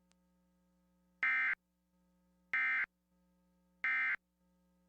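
Emergency Alert System end-of-message signal: three short bursts of harsh, buzzy SAME data tone about 1.3 seconds apart, marking the close of the alert.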